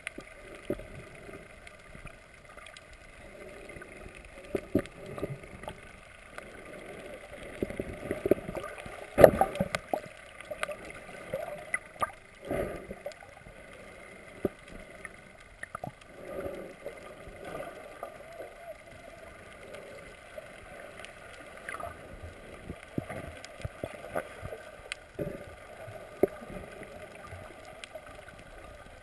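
Muffled underwater sound as heard by a camera held below the surface: a steady watery hiss and gurgle, broken by irregular knocks and clicks.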